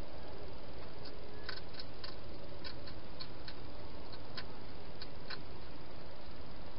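Wild hedgehog eating from a bowl inside a plastic feeding box: irregular, sharp crunching clicks for a few seconds, over a steady hiss.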